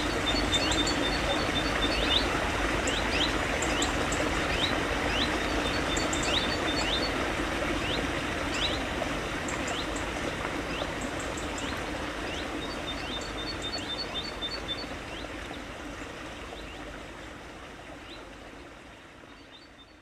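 Small mountain stream running over rocks, with birds calling over it: repeated short upward-sweeping chirps and brief high trills. The whole sound fades out gradually through the second half.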